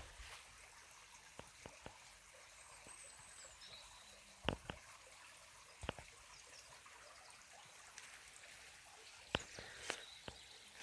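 Quiet campsite ambience: a faint steady hiss, a few sharp clicks, and a brief thin high whistle about three seconds in.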